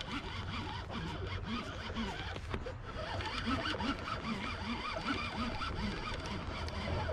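Fishing reel being cranked steadily to reel in a hooked fish on a bent rod, a continuous rattling full of small clicks.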